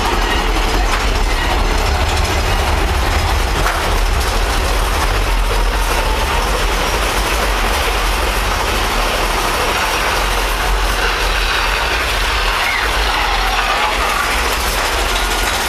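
Big Thunder Mountain Railroad mine-train roller coaster running along its track: a steady, loud rumble of the train's wheels on the rails, with faint high squeals near the start and again near the end.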